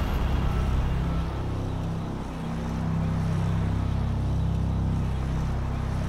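Car driving, heard from inside the cabin: a steady low engine and road hum that dips briefly about two seconds in.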